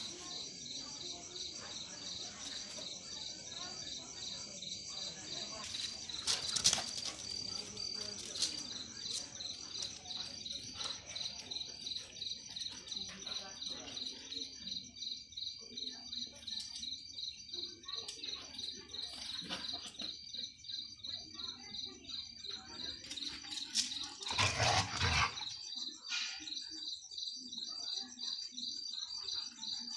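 Crickets chirping in a steady, rapidly pulsing high trill. A short louder noise breaks in about six seconds in, and a longer, louder one near twenty-five seconds in.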